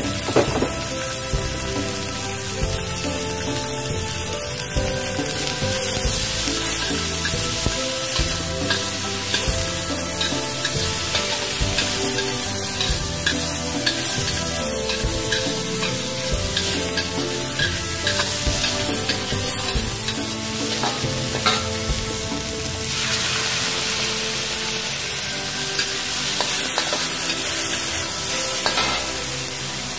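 Chopped chillies, tomato and aromatics sizzling in hot oil in a metal wok, stirred with a metal spatula that scrapes and taps against the pan again and again.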